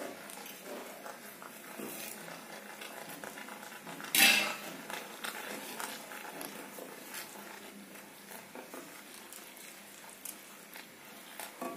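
Wooden spatula stirring chicken pieces through thick masala gravy in a non-stick kadhai, with faint scrapes and small knocks against the pan and one louder clatter about four seconds in.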